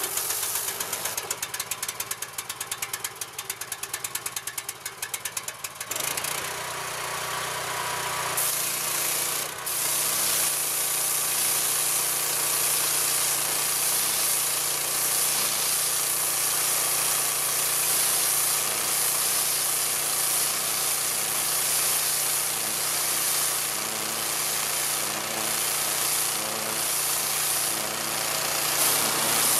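Petrol pressure washer engine running with a rapid pulsing rattle for about the first six seconds. Then the engine settles into a steady drone under the continuous hiss of the high-pressure water jet blasting the ground, which grows brighter about eight seconds in.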